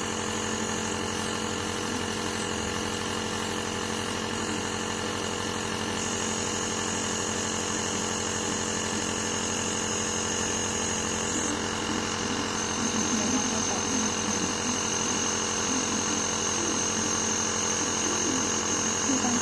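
Compressor nebulizer running with a steady mechanical hum, delivering a nebulized treatment for a dog's cough.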